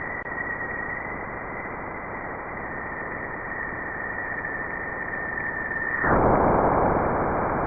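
Jupiter's magnetospheric radio emissions converted to audio: a steady hiss carrying a high, steady tone. About six seconds in, the tone drops out and the hiss gets louder.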